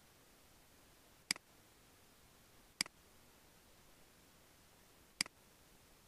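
Three sharp computer mouse clicks, each a quick press and release, the second about a second and a half after the first and the third about two and a half seconds later, over faint steady hiss.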